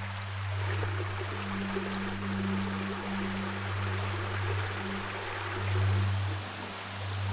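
Rushing water hiss, with a low humming drone beneath it that swells and fades, loudest about six seconds in.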